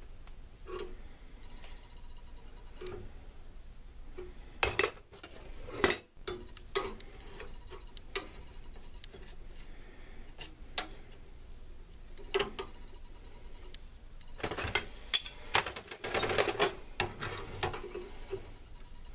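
Irregular metal-on-metal knocks and clanks as a steel draw knife is tapped a little at a time to straighten a bend, with two busier runs of blows, a few seconds in and again near the end.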